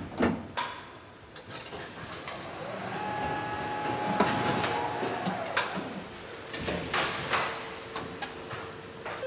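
Car assembly-line machinery running, with scattered metallic clanks and knocks and a motor whine that rises and then holds steady for a few seconds. This goes with a fixture lifting the front suspension strut and brake disc up to the car body.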